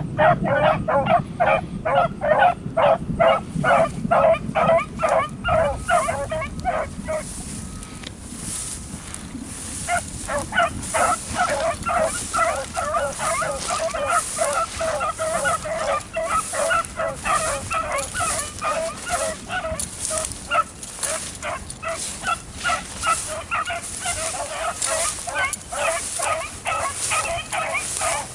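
A pack of beagles baying on a rabbit's trail, a rapid run of repeated yelping calls, about three or four a second. The baying fades for a few seconds about a quarter of the way in, then picks up again with several voices overlapping.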